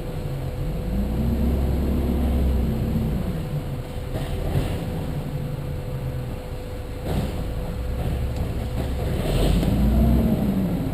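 Car being driven, with a steady low road and engine rumble. The engine pitch rises and falls twice, and a few short knocks can be heard along the way.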